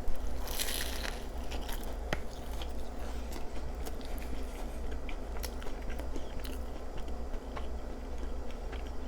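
A crunchy bite into a sloppy joe on a crusty, buttery toasted bun about half a second in, followed by chewing with small crunches and clicks.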